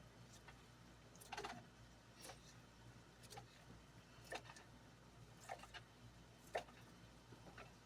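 Faint, irregular knife taps on a cutting board, about one a second, as small peppers are chopped.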